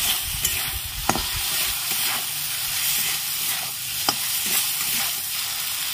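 Tomato wedges and green chillies sizzling in hot oil and spice paste in a metal kadai, stirred with a metal spatula that scrapes and knocks against the pan a few times, about a second in and again about four seconds in.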